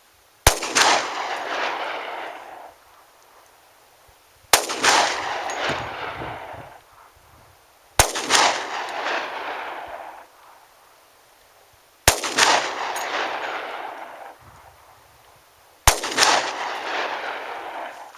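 Five single shots from a Glock 20SF 10mm pistol, fired slowly about four seconds apart, each followed by an echo that dies away over about two seconds.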